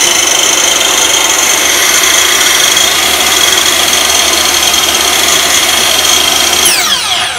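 Makita LS1040 mitre saw's electric motor, fitted with a new DCA replacement armature, running steadily at full speed with a high whine. Near the end it is switched off and its whine falls as it begins to spin down.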